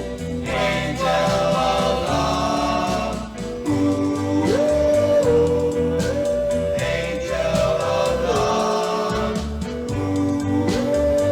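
1960 doo-wop vocal group singing wordless held harmony notes that step up and down in pitch, over the record's band backing.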